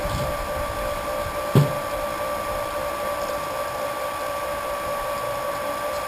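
Small electric wort pump running steadily with a constant whine, moving hot wort through a plate chiller. A single knock sounds about one and a half seconds in.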